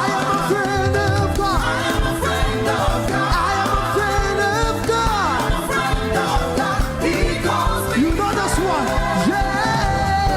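Upbeat gospel praise music played by a band, with singing over bass and drums.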